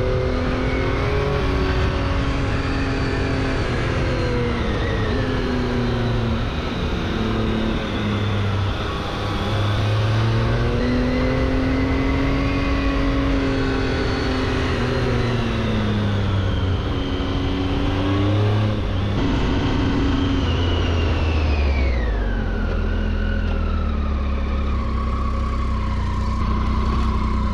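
Motorcycle engine being ridden hard, its revs rising and falling again and again as it pulls and eases off. About three-quarters of the way through the revs drop away and it settles into a steady low idle.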